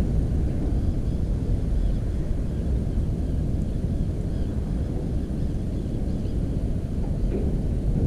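Steady low rumble of wind buffeting an outdoor camera microphone.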